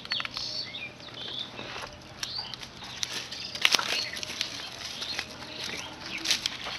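Small birds chirping now and then over a light rustling, with scattered sharp clicks and crackles, the loudest just after the middle.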